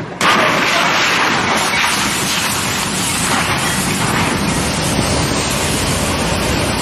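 A freight train smashing into a semi-truck trailer on a level crossing: a sudden loud crash about a quarter second in, then a steady loud rush of noise as the locomotives and freight cars tear past close by.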